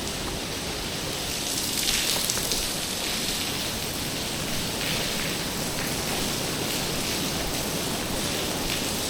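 Heavy rain falling steadily as a dense hiss, swelling briefly about two seconds in.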